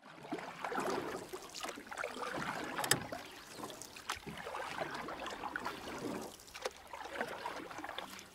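Water lapping and sloshing against a kayak's hull on calm water, with small irregular clicks and ticks throughout, the sharpest about three seconds in.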